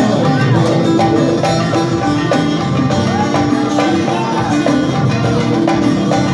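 Turkish folk music played live on the bağlama, a long-necked plucked lute, in an instrumental passage of steady, evenly repeating strokes under a running melody.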